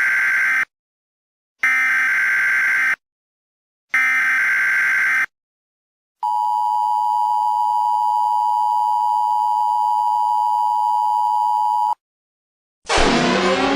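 Emergency Alert System header: three bursts of digital data tones, each about a second long with a second's pause between them, then a steady attention tone of about six seconds that cuts off suddenly. About a second later a loud siren-like sound with a falling sweep begins.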